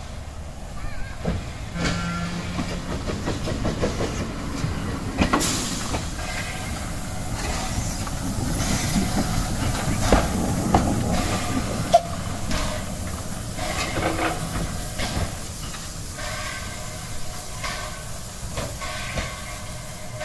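Small metre-gauge steam tank locomotive U 29.101 'Krutwig' pulling away and passing close by, with hissing steam and knocking from its running gear. It is loudest about halfway through and fades over the last few seconds as it draws away.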